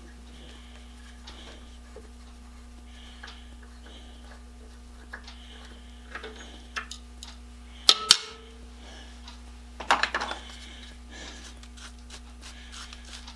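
Scattered light clicks and taps of small metal hand tools being handled, with two sharp clicks about eight seconds in and a quick clatter about two seconds later, over a steady low electrical hum.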